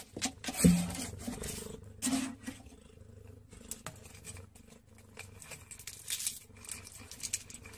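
A domestic cat squirming in a tight gap against wood, with a scatter of soft scratching and rustling clicks and two brief low sounds in the first two seconds.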